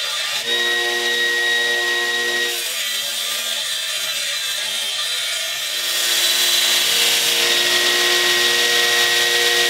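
Alpha Knife Supply 2x72 belt grinder running with a steady motor whine while the steel head of an axe forged from a railroad spike is ground against the belt, throwing sparks. The grinding hiss grows louder about six seconds in.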